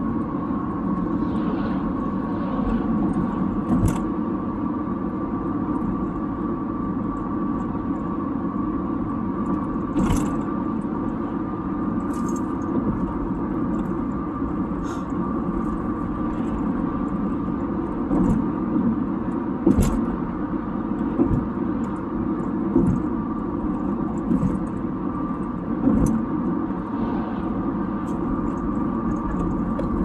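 Steady road and tyre noise heard from inside a car's cabin while driving at highway speed, with a faint steady high hum. A few short sharp knocks come at irregular intervals.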